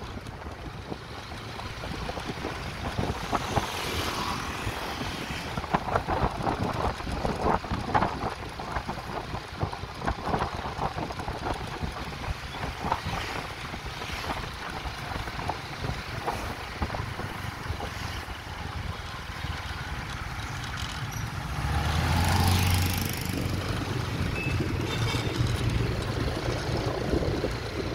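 Street traffic and wind rumbling on the microphone, heard from a vehicle moving along the road. A louder low engine hum swells briefly about three-quarters of the way through.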